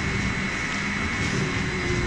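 Veneer peeling lathe and clipper line running, a steady mechanical drone with a faint continuous high whine.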